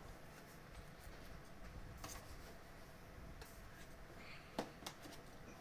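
A few faint, sharp clicks and taps of plastic vacuum cleaner parts being handled and fitted together, against a quiet room background.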